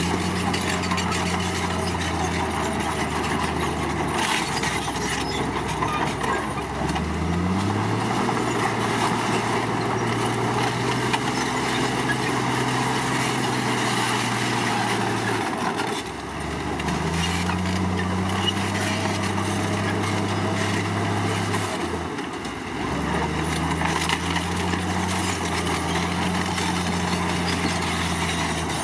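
Komatsu D53 bulldozer's diesel engine working, its revs rising and falling several times under changing load: it revs up about a quarter of the way in, drops back about halfway, climbs again, and dips once more near the end before picking up.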